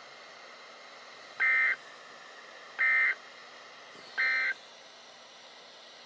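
Three short bursts of warbling data tone from a NOAA weather radio, each about a third of a second and spaced about a second and a half apart: the EAS end-of-message code that closes the required weekly test broadcast. Faint radio hiss fills the gaps.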